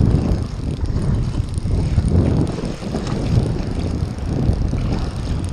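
Wind buffeting an action camera's microphone: a loud, uneven low rumble.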